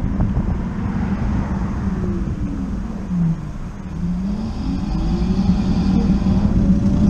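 Super Soco TC Max electric motorcycle's hub motor whining: the whine falls in pitch as the bike slows to a near stop about three seconds in, then rises steadily as it accelerates away, over a steady low wind and road rumble.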